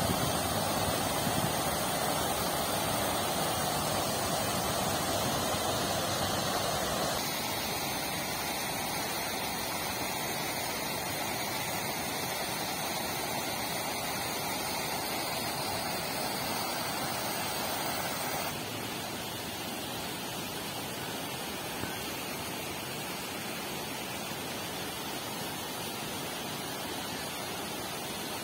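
Park fountains splashing: a steady rush of falling water spray. The level steps down abruptly twice, about a quarter and about two-thirds of the way through.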